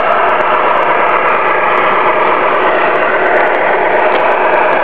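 Radio-controlled model trucks running with a steady, even engine-like hum that does not change.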